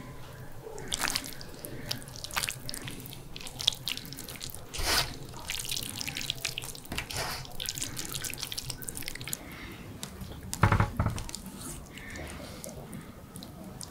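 Wet squelching and irregular drips as raw chicken fillets coated in an oily turmeric marinade are squeezed by hand, the marinade dripping back into a metal tray. A louder thump about eleven seconds in.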